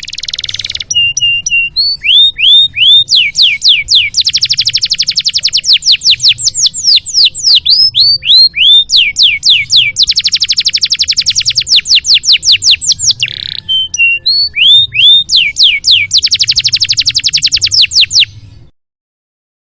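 Canary singing a long, loud song of fast trills and runs of quick repeated notes that sweep down in pitch, with short breaks between phrases. It cuts off suddenly near the end. This is a canary tutor recording (masteran), played to teach young songbirds a full repertoire.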